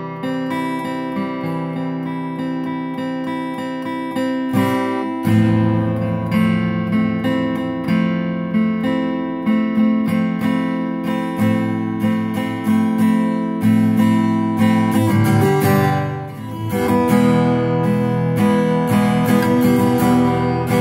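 A Tanglewood Crossroads all-mahogany, orchestra-body acoustic guitar on its factory bronze light strings, played as chords picked and strummed in a steady rhythm. It is softer for the first few seconds, then louder and fuller.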